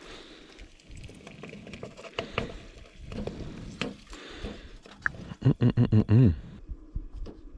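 Someone tasting food: light clicks and rustles, then a short pulsing "mmm" of approval about three quarters of the way in.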